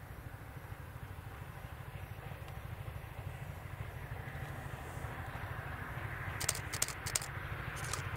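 Queensland Rail BB18¼ class steam locomotive approaching over a steady low rumble, its rush growing louder, with a few sharp beats about two-thirds of the way in and again near the end.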